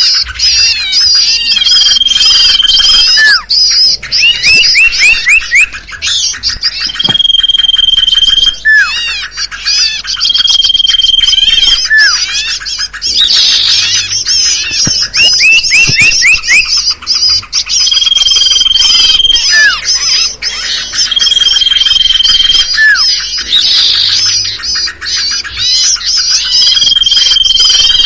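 Bird-lure recording for cipoh (common iora): a dense, looped mix of bird calls. A level whistle about a second long comes back every few seconds between quick runs of rising chirps and short falling notes, over continuous high twittering.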